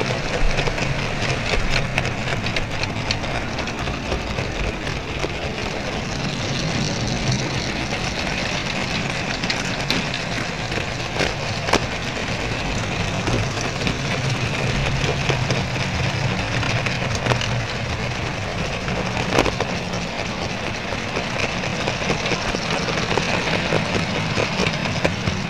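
Model train running along the track, heard from a small camera riding on a wagon: a steady rattling rumble with a low hum underneath and a few sharp clicks.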